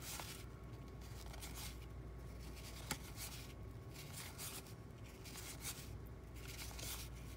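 Faint rustling and sliding of stiff cardboard 1987 Topps baseball cards being flipped through by hand, with one sharp click about three seconds in.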